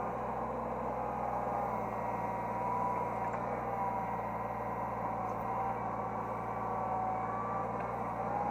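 Hydraulic excavator's diesel engine and hydraulic pump running steadily, heard from the operator's cab: a constant low hum with a steady whine that drifts slightly in pitch.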